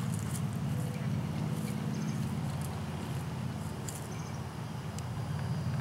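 A steady low engine-like hum, with faint scattered ticks and scuffs over it.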